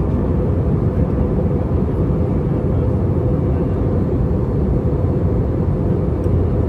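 Steady low cabin rumble inside an Airbus A320-232 in descent, from airflow over the fuselage and its IAE V2500 engines, even and unchanging throughout.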